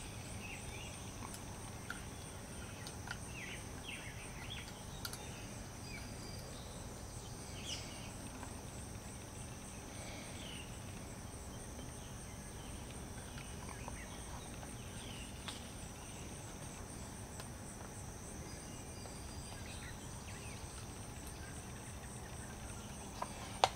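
Insects trilling steadily at two high pitches, one of them pulsing rapidly, with a few faint scattered ticks.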